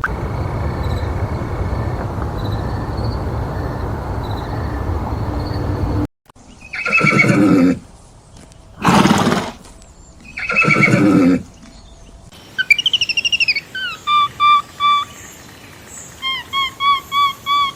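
Steady noisy rumble for about six seconds, then a horse whinnying three times, each call about a second long. Near the end come a quick run of short, high chirping calls that drop in pitch.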